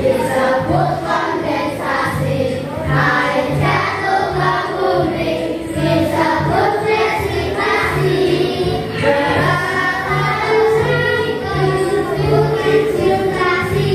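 A group of voices singing a song about the water cycle over a steady beat.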